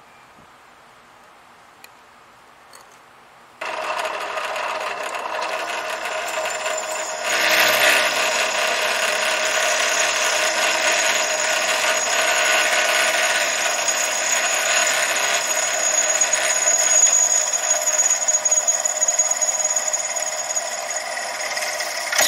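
Drill press running at 1150 RPM, its 5/16-inch Bosch M35 cobalt twist drill boring through 1/4-inch 304 stainless steel under oil. The sound starts suddenly about three and a half seconds in and gets louder at about seven seconds as the bit cuts, then holds as a steady high-pitched whine made of several ringing tones.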